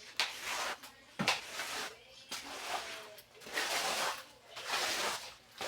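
Scrubbing strokes on a refrigerator being washed: a run of rasping strokes about one a second, a couple of them starting with a knock.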